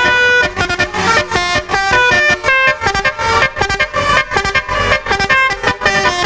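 Telolet-style multi-tone musical vehicle horns playing a quick tune of short held notes, the pitch jumping several times a second.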